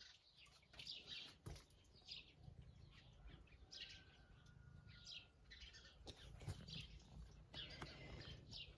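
Faint birdsong: small birds chirping in short, high notes that repeat every second or so.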